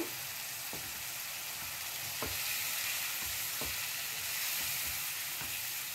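Onion-tomato masala with a little water added sizzling steadily in oil in a non-stick kadhai while being stirred with a spatula, with a few soft knocks of the spatula against the pan. This is the bhuna stage, where the spices are roasted until the oil separates.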